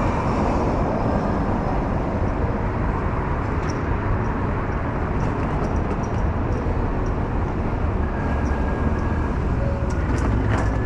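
Steady city street noise with a low rumble throughout. A faint high steady tone comes in about eight seconds in, and a few sharp clicks follow near the end.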